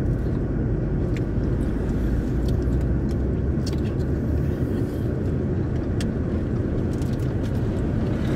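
Steady road and engine rumble inside the cabin of a moving car, with a few faint clicks scattered through it.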